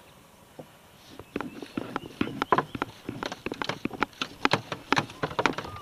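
Fly line being stripped in by hand in quick short pulls, a rapid irregular run of rasping, clicking strokes as the line slides through the fingers and rod guides, starting about a second in.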